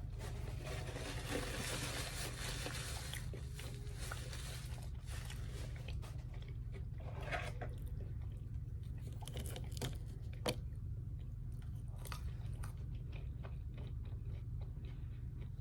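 Close-miked chewing and crunching of fast food in a mukbang, with wet mouth sounds and a few sharp clicks, the sharpest about ten seconds in, over a steady low hum.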